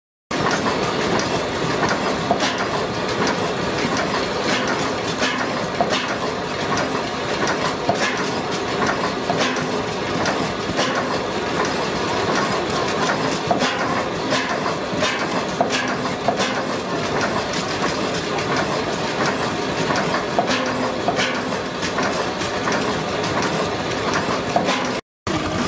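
Horizontal single-cylinder stationary engine with a large flywheel, running steadily with a rhythmic mechanical clatter and sharp clicks about once a second. The sound cuts off suddenly near the end.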